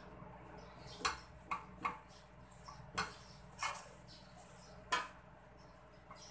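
A cooking utensil knocking and scraping against a square nonstick frying pan and a ceramic bowl as cooked shrimp are scooped from one to the other: about six short clinks spread over several seconds.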